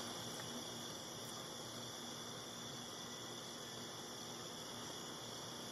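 Faint, steady chorus of night crickets, a continuous high trill without breaks.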